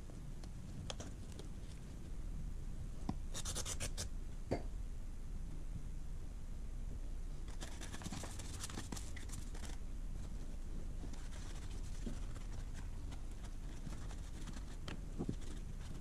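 A small brush scrubbing grime off a motorcycle's front sprocket and the back of the sprocket cover: bursts of scratchy scrubbing a second or two long, several times, with small clicks between them, over a steady low hum.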